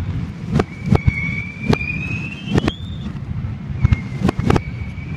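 Fireworks played backwards: a string of sharp bangs and crackles, with two long whistling fireworks whose reversed whistles glide upward in pitch and cut off abruptly, the first ending about three seconds in and the second starting near the end.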